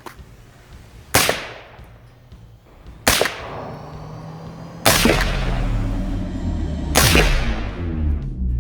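Four suppressed .308 rifle shots from an AR-10 fitted with a SilencerCo Sith suppressor, about two seconds apart, each a sharp report with a short fading tail. A low steady rumble comes in under the last two shots.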